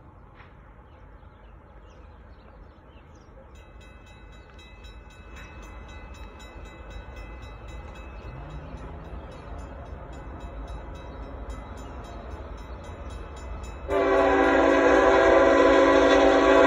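Approaching diesel freight train, its low rumble slowly growing, with a faint horn in the distance. Then about 14 seconds in, the lead locomotive's air horn sounds one loud, long blast.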